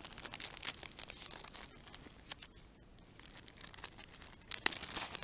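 Clear plastic bag of spice rub crinkling as it is handled, in irregular rustles with a sharper crackle about two seconds in and another near the end.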